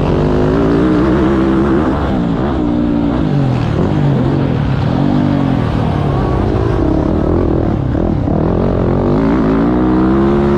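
Four-stroke motocross bike engine with an FMF 4.1 RCT exhaust, revving hard under load. Its pitch climbs and drops again every second or two as the throttle opens and closes.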